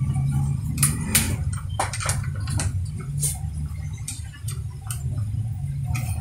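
Scattered small clicks and knocks of metal and plastic parts being handled and fitted together while a grinder chainsaw attachment is assembled by hand, over a steady low background hum.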